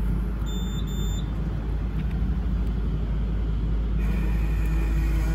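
Refrigerated vending machine humming steadily, with two short keypad beeps about half a second and a second in as item 15 is selected. A faint steady whine comes in about four seconds in as the machine starts the vend.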